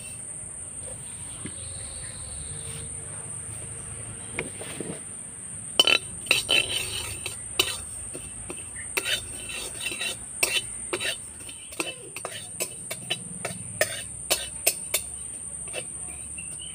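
Flat metal spatula scraping and knocking around the inside of a metal kadai while nigella seeds are dry-roasted, in quick irregular strokes that start about six seconds in. Insects shrill steadily throughout.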